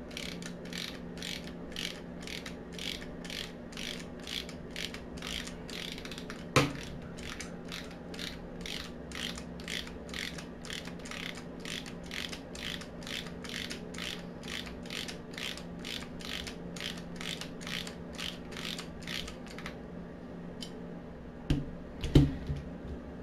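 Socket ratchet clicking in a steady rhythm, about two a second, as a bolt is loosened through an extension and a universal joint. The clicking stops about twenty seconds in, followed by a few louder metal knocks.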